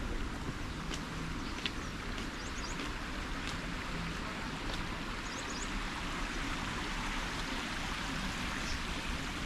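Steady rushing of flowing water, with a few short, high chirps scattered through it.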